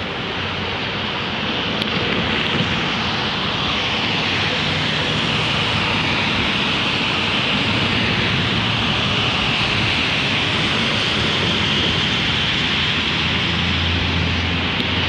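Steady freeway traffic noise from cars and trucks on an elevated highway, a continuous hiss of tyres that swells and eases, with a low engine drone growing louder near the end.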